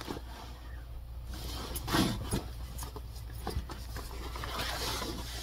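Denim jeans rustling and rubbing as they are unfolded and handled, with a brief louder rustle about two seconds in, over a faint steady low hum.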